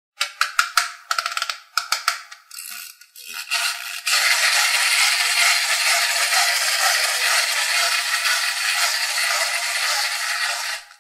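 Plastic toy rattling and clattering in quick irregular bursts. About four seconds in it turns into a loud, steady rattling hiss.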